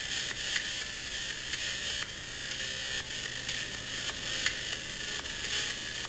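Steady hiss with a low hum and scattered faint clicks at irregular intervals. No music or voice is heard.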